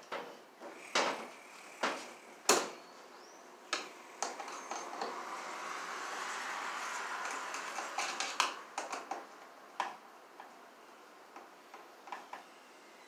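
Hands working a blue plastic electrical box and yellow nonmetallic cable: a few sharp knocks and clicks, then a steady rustle of the cable being handled for about three seconds in the middle, followed by a run of smaller clicks and ticks.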